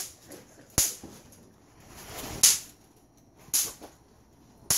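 Bang snaps (snap pops) thrown against the ground, going off in four sharp cracks roughly a second apart.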